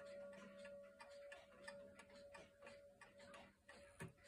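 Early-1930s Garrard spring-driven, pendulum mantel clock ticking steadily and softly, with the faint ring of a chime gong still dying away. A single light knock comes near the end.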